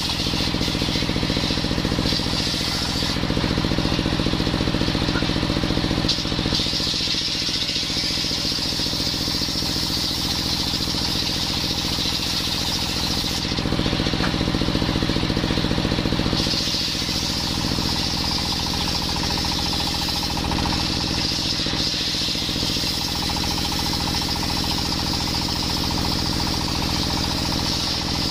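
Belt-driven table saw's circular blade ripping coconut wood, over the steady running of the engine that drives it. The sawing changes in tone briefly a few seconds in and again about halfway through.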